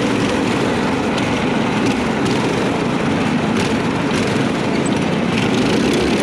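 The four small single-cylinder engines of a four-engine go-kart, one driving each wheel, running hard together as the kart drives over rough dirt, with scattered clicks and knocks.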